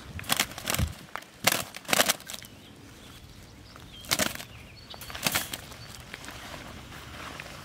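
Mourning doves flapping their wings in short bursts while being taken from a wire trap, with a cloth bag rustling; this skittish flapping is normal for trapped doves being handled. Several bursts come in the first two seconds, then two more about four and five seconds in.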